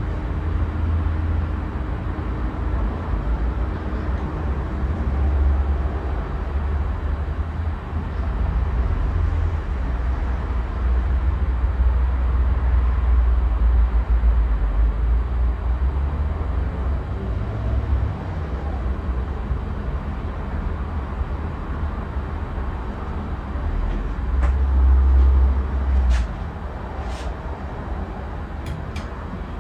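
A Casablanca Wailea ceiling fan, running on a replacement start/run capacitor, heard as a steady whoosh of moving air with a low, uneven rumble. A few faint clicks come near the end.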